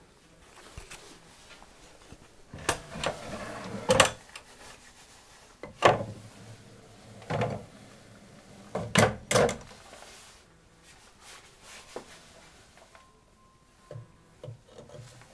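Timber two-section sliding loft ladder being moved: wood slides and rubs for about a second, ending in a sharp wooden knock. Several more knocks follow a second or two apart, including a quick double knock, with fainter taps near the end.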